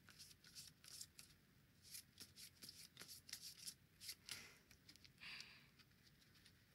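Playing cards drawn off a deck one after another by hand: a quick run of faint, light flicks and snaps of card stock, thinning out after about four and a half seconds.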